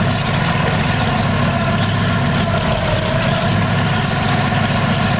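B-24 Liberator's Pratt & Whitney R-1830 Twin Wasp radial engine idling steadily on a test stand, its propeller turning, with an even low rumble.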